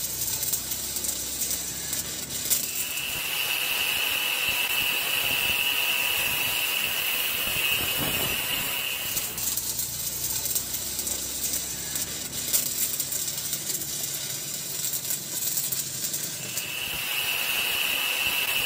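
Metalworking in a workshop: a steady hissing noise, with a high, steady whine that comes in twice, from about three to nine seconds in and again near the end, where an angle grinder is cutting steel and throwing sparks.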